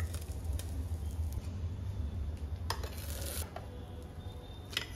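Steel kitchen tongs clicking and scraping against the plates of an electric sandwich maker and a ceramic dinner plate while toasted sandwiches are lifted out. A few sharp clicks and a short scrape about three seconds in, over a low rumble that fades out.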